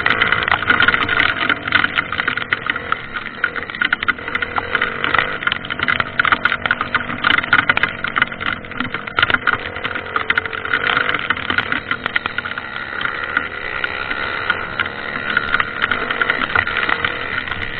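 Dirt bike's single-cylinder four-stroke engine running with slowly changing revs, under a dense crackling, rattling noise.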